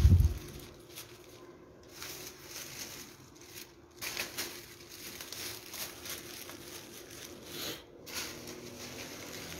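A low thump, then stacks of thin kite sheets rustling and crinkling irregularly as they are lifted, shuffled and set down.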